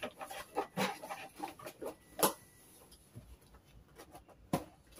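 Cardboard box with a microphone being handled and closed: scattered taps, knocks and rustles, the sharpest about two seconds in and again near the end.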